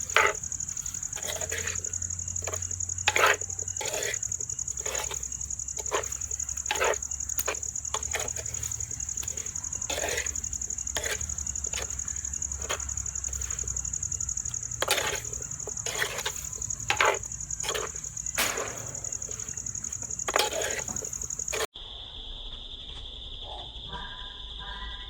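A series of irregular knocks, roughly one every half second to a second, over a steady high-pitched buzz. The sound changes abruptly near the end.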